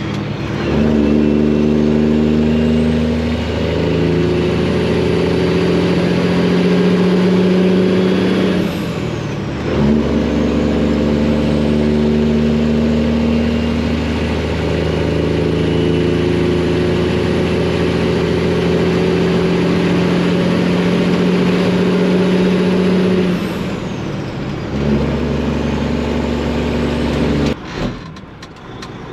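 Freightliner semi-truck's Detroit diesel engine pulling under load with a steady, loud note. The note cuts off and picks up again twice, as gears are shifted, and falls away near the end.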